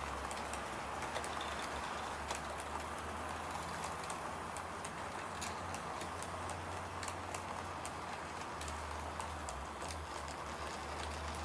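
Model train running on its track: a steady motor hum and running noise with many irregular light clicks from the wheels on the rails.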